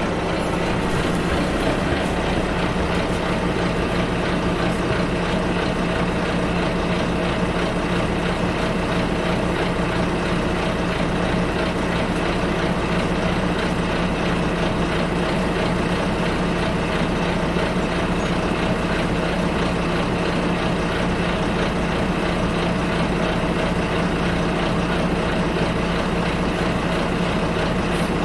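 Double-decker bus engine idling, heard from inside the passenger cabin: a steady low hum with a constant cabin rumble, unchanging throughout.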